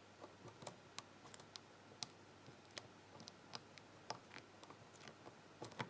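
Faint, irregular clicks and ticks of a lock pick working the pins inside a pin tumbler challenge lock, with the pins giving little feedback.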